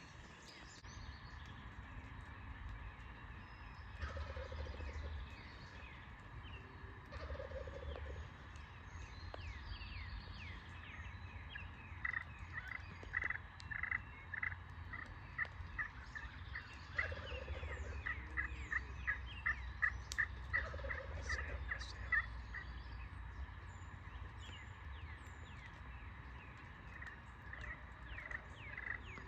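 Wild turkey gobbling in the distance, four gobbles of about a second each. In the middle, a run of short high calls repeats two or three times a second, with faint bird chirps and a low rumble underneath.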